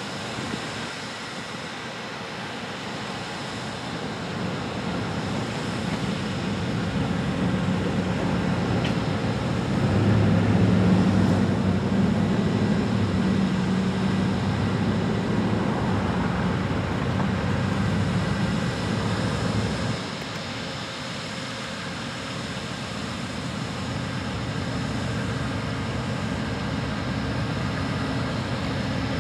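Diesel engine of an Amtrak GE P42 Genesis locomotive running with the train standing, a steady low drone. It grows louder over the first ten seconds, holds, and drops off abruptly about twenty seconds in.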